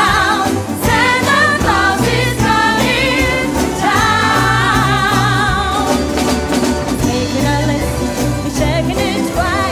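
A woman singing a Christmas song lead into a microphone, accompanied by a live band. About four seconds in she holds a long note with wide vibrato.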